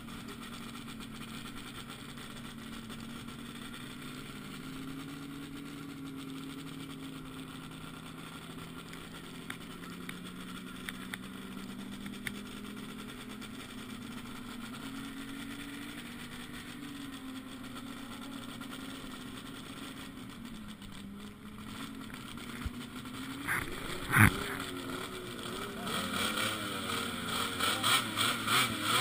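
Distant snowmobile engines idling and blipping in a steady, wavering drone. Near the end there is a sharp thump, after which the engines grow louder and pulse as they rev.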